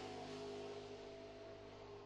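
Closing music of a logo sting: a faint, sustained chord slowly fading away.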